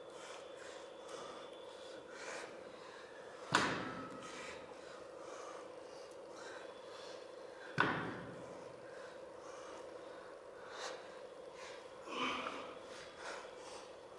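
A lifter's hard, rhythmic breathing through the nose while curling dumbbells, with two sharp metal clanks of the iron dumbbells about four seconds apart, the first ringing briefly.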